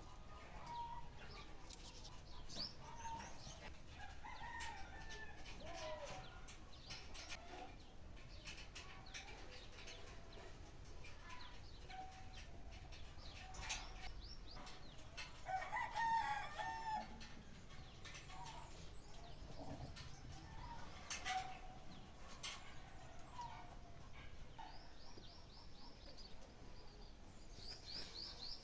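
Birds calling outdoors: many short scattered calls and high chirps over a steady background hum, with one louder drawn-out call about sixteen seconds in.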